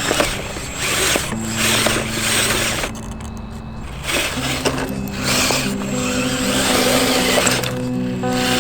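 Background music with held low notes, over a loud rough whirring noise that drops out for about a second around three seconds in.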